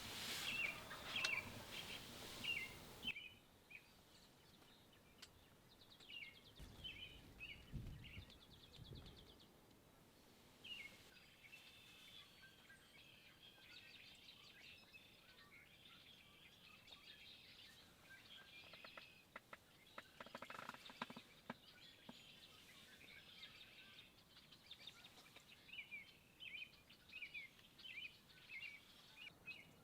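Faint songbirds chirping on and off in the woods, with a short stretch of hiss near the start.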